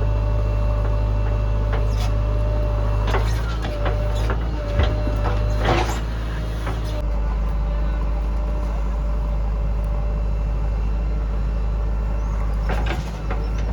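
Heavy diesel engine of a backhoe loader at work, running steadily, with several metallic clanks and scrapes from about three to six seconds in and again near the end. The engine note eases off about seven seconds in.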